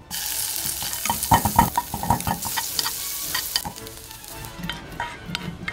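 Chopped scallop pieces sizzling in hot oil in a frying pan, with clicks and knocks of a utensil moving them around. The sizzle stops about two-thirds of the way through, leaving only scattered light taps.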